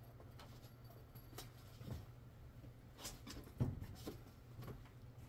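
Low steady room hum with a few faint knocks and taps, the loudest about three and a half seconds in.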